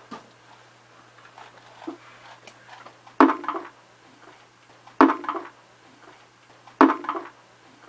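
Three loud knocks about two seconds apart, each followed by a short clattering ring, over a faint low steady hum.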